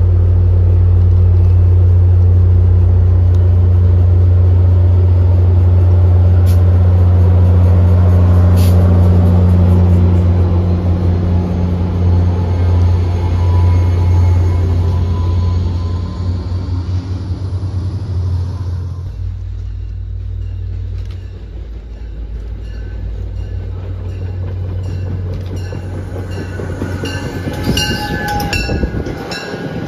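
MBTA F40PH-3C diesel locomotive passing close by, its engine giving a loud steady low drone that fades away over several seconds as it moves off. Then a quieter stretch as another commuter train approaches, with a quick run of clicks from its wheels over rail joints near the end.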